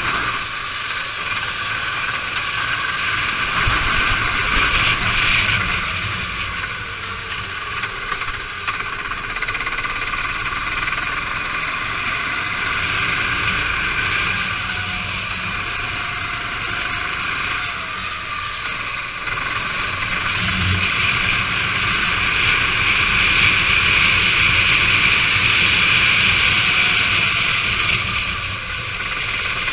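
Onboard sound of a racing go-kart's engine running hard, heard from the driver's seat, growing louder and quieter by turns as the throttle is worked through the corners.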